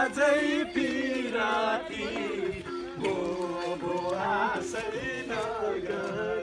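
A song with a singing voice over music.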